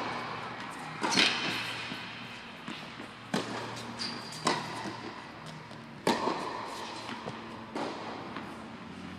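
Tennis balls struck by rackets and bouncing on an indoor hard court during a baseline rally: sharp hits about every one to two seconds, each echoing around the large hall, the loudest about a second in and about six seconds in.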